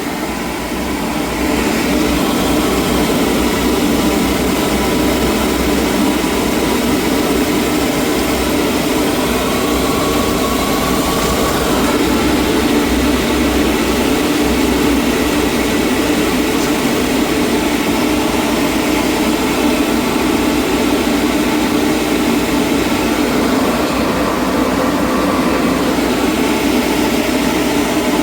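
Gas-fired boiler burner lighting and firing. The steady rushing noise of the burner comes up about a second or two in and then holds even.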